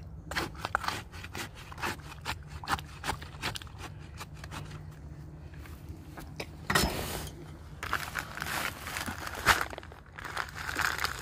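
A stick jabbing and scraping in wet concrete and gravel around a post in a hole, with irregular crunching clicks. Near the end a paper bag of fast-setting concrete mix crinkles as the dry mix is poured in.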